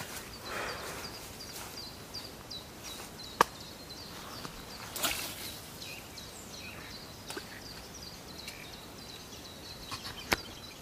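A spinning rod being cast: a sharp click, then a short swish of the cast about five seconds in, and another sharp click near the end. A bird chirps a short high note over and over.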